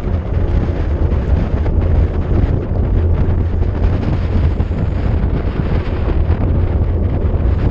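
Wind buffeting the microphone of a camera on a bicycle descending at speed: a loud, steady low rumble with a rushing hiss over it.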